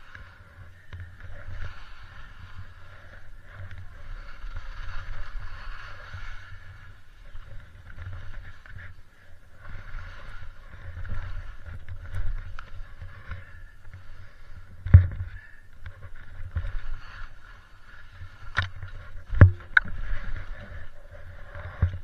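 Skis (Osgo Spencer, 110 mm waist) hissing and scraping through snow on a forest descent, over a low steady rumble. Several sharp knocks of ski or gear hitting the snow in the second half, two close together near the end.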